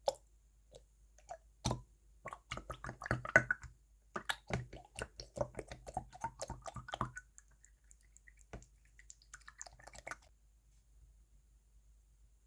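Clear, stiff 'chisel'-type slime being pressed and worked by hand, giving a quick run of small sticky pops and clicks that thin out past the middle and stop before the end.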